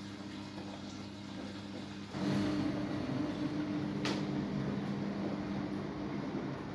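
Samsung washing machine running with a steady low motor hum. About two seconds in a louder rushing noise sets in and holds, and a sharp click comes about four seconds in.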